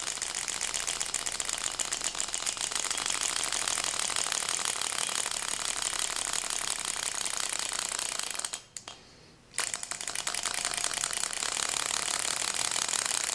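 Gatling-style six-cylinder Ringbom Stirling engine running with a rapid, steady clicking: the free displacers knocked back and forth by the pistons. The clicking drops out suddenly for about a second near the nine-second mark, then resumes.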